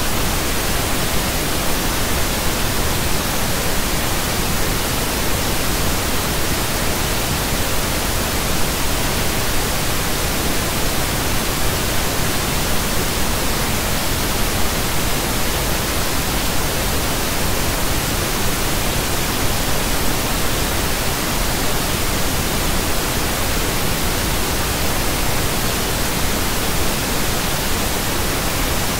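Pink noise: a steady, even hiss spread across the whole range of pitch, unchanging throughout.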